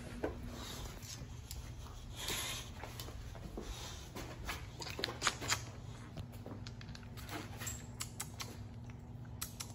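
A dog moving about on a tile floor with a toy in its mouth: scattered light clicks and scuffs, a cluster of them about five seconds in.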